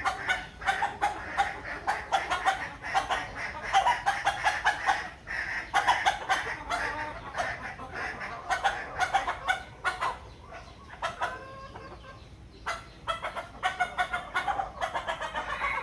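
Chickens clucking in quick runs of short, repeated clucks. The clucking eases off for a couple of seconds about two-thirds of the way through, then picks up again.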